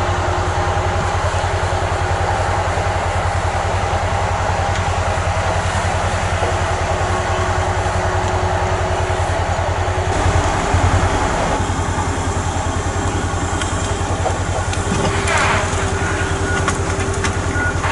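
Heavy diesel logging machinery running steadily, with a fast even engine pulse and a steady high tone over it. The sound shifts about ten seconds in, and a short whine sweeps up and back down near the end.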